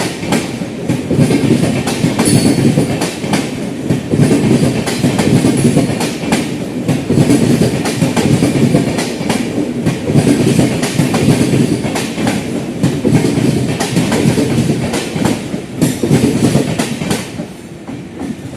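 Indian Railways express coaches rolling past, their wheels clattering over rail joints in a steady clickety-clack over a low rumble. The sound fades somewhat near the end.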